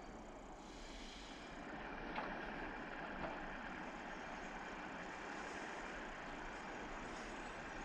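ED9M electric multiple unit approaching in the distance: a faint, steady rumble of its wheels and motors on the rails that grows a little louder about two seconds in, with two short clicks.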